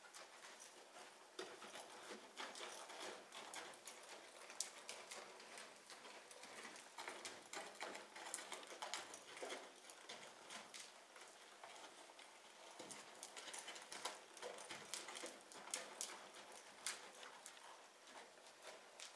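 A horse walking in deep sand footing: a faint, irregular run of hoofbeats.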